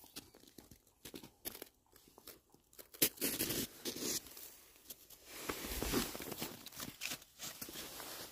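Irregular crunching and rustling right at the microphone as Great Danes shift about in packed snow and one dog's fur brushes over the phone, louder in two stretches in the middle.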